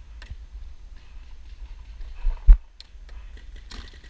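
Paintball gunfire on the field: one sharp, loud pop about two and a half seconds in, with scattered light clicks, over a low wind rumble on the microphone.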